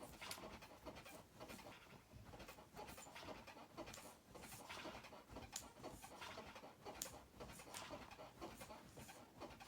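Sleeping dog making faint, rapid, irregular sputtering huffs and breaths as it dreams, sounding like a motorcycle that won't start.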